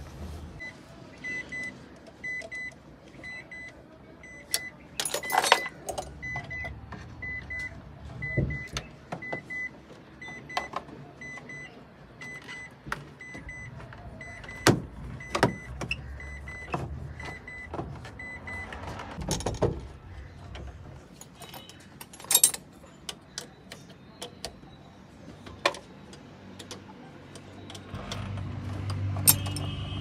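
Hand tools clanking and clicking on engine parts while a ratchet and extension work on the bolts of a small van's engine, with sharp metal knocks now and then. A short electronic beep repeats about twice a second through the first two-thirds and then stops.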